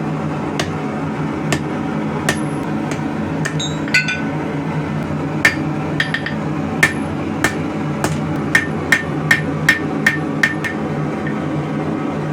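Blacksmith's hammer striking hot steel on an anvil, each blow with a short metallic ring. The blows are spaced out at first, then come in a steady run of about two a second through the second half. A steady low roar runs underneath.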